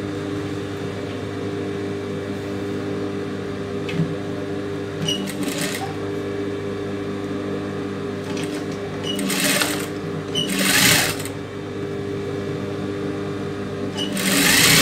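Industrial sewing machine running steadily while stitching a silk brocade border onto fabric, with a few short hissy bursts, the loudest near the end.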